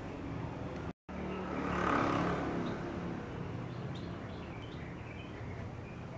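Street traffic noise from a nearby road, with one vehicle passing and swelling to its loudest about two seconds in before fading. The sound cuts out completely for a moment just before.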